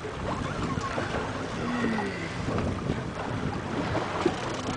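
Wind buffeting the microphone over the steady wash of open sea water against a boat's hull.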